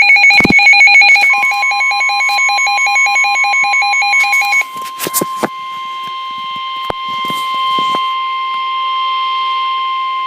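Emergency alert tones: a rapid electronic beeping alarm for about four and a half seconds, a few clicks, then one steady alert tone held without a break, the attention signal that comes before a weather warning is read.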